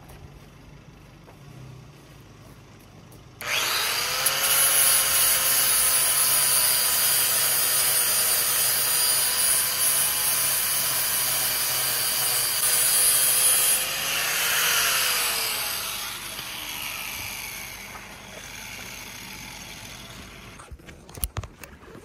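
Corded electric grinder switched on a few seconds in, grinding the fibreglass hull bottom with a steady motor whine and rasping for about ten seconds. It is then let off, and its whine falls away as it spins down.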